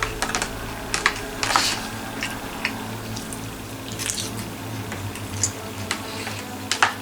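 Eating sounds of someone chewing pieces of orange chicken and handling the food: irregular scattered clicks and small wet noises, over a steady low hum.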